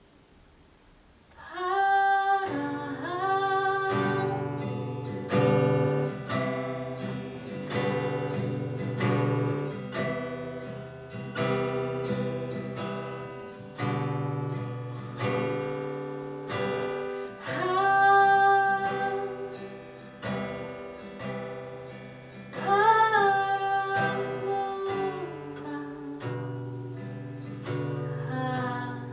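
A song: a voice singing long held notes over acoustic guitar being strummed and plucked, starting about a second and a half in after a near-quiet opening.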